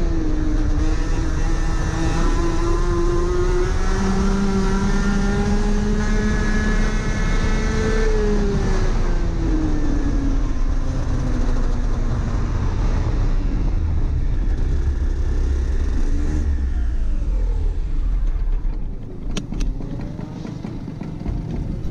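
Rotax Max 125cc two-stroke kart engine, heard onboard, with a low rumble underneath. Its pitch climbs slowly for about eight seconds, then winds down for several seconds as the kart slows, and the engine fades out a few seconds later. A few sharp clicks follow as the kart rolls to a stop.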